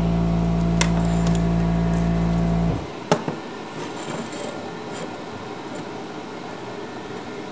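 Stick welder's transformer humming steadily with no arc struck, cutting off suddenly under three seconds in. A sharp metal clank follows, then light handling of steel on the bench.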